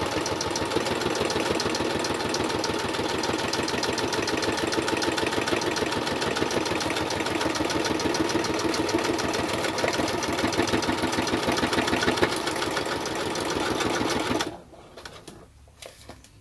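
Brother XR3340 computerized sewing machine running steadily, its needle stitching through the layered paper-bag pages in fast, even strokes. It stops abruptly about two seconds before the end, followed by a few light clicks.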